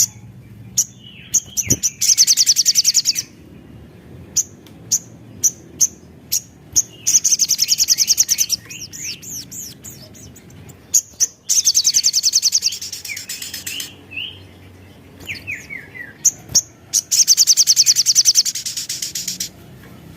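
Sogon (little spiderhunter) singing: four fast, high rattling trills, each lasting one to two seconds. Between them come sharp single chips and short falling whistled notes.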